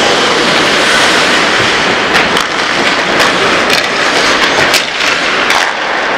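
Ice hockey play on the rink: a steady scraping hiss of skates on the ice, with sharp clacks of sticks and puck every so often.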